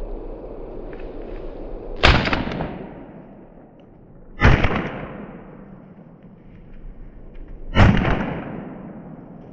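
Stoeger M3000 semi-automatic 12-gauge shotgun firing buckshot, three shots about two and a half and then three seconds apart. Each loud report has a short echo fading behind it.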